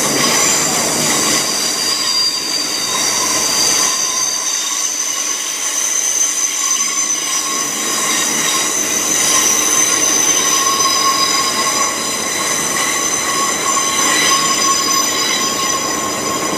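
Heathrow Express Class 332 electric multiple unit, running as a double set, pulling into the platform and squealing: several steady high-pitched tones held over the rumble of the passing train.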